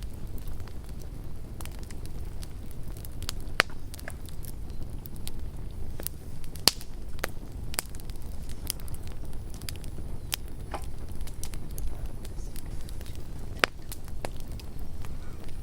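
Campfire burning with a steady low rumble and irregular crackles and pops of burning wood, the sharpest snaps about 3.5 s, 6.5 s and 13.5 s in.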